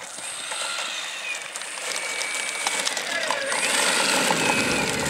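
Engine of a large RC model Cessna running on the ground with a fast mechanical rattle, growing steadily louder.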